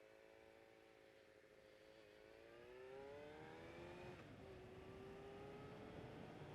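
Suzuki Bandit 600's inline-four engine running faintly under way, its pitch rising as it accelerates from about two seconds in, then dropping sharply just after four seconds at a gear change, before holding steady.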